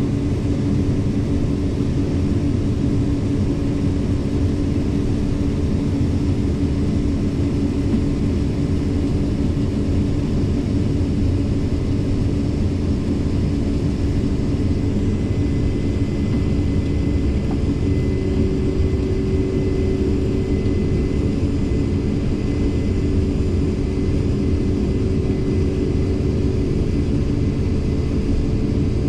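Farm tractor's diesel engine running steadily with its PTO engaged: an unbroken drone with a few constant tones, and a higher tone joining about two-thirds of the way through.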